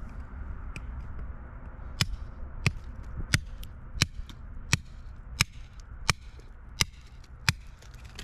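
Rock hammer striking a block of rock: nine sharp, ringing blows, evenly spaced about 0.7 s apart, beginning about two seconds in and breaking the block apart.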